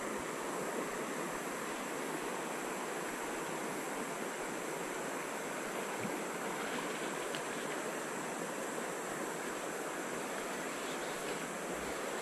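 Steady rush of shallow river water running over rapids, an even, unbroken wash of noise.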